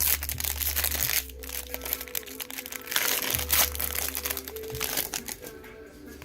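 Foil trading-card pack wrapper crinkling as it is handled and torn open, in loud stretches during the first few seconds, over background music.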